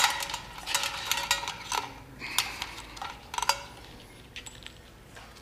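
Handling noise of ceiling fan wires being fed through the metal yoke on the fan motor: irregular light clicks, taps and rustles of wire against metal and plastic, thinning out after about two seconds.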